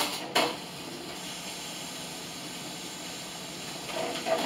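Steady hissing of kitchen noise, with two short clatters just after the start and more clattering near the end.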